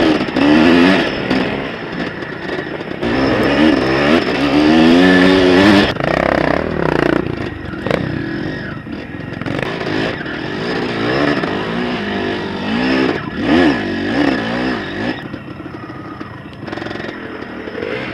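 Dirt bike engine, heard from the rider's helmet camera, revving up and down over and over as the throttle opens and closes through the gears, with wind on the microphone.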